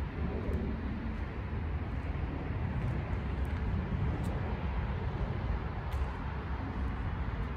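Outdoor background ambience: a steady low rumble with no distinct events.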